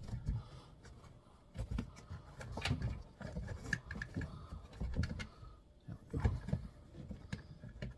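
Hands working plastic interior trim and a wiring connector: irregular clicks, taps and low bumps as the bezel and plug are shifted about.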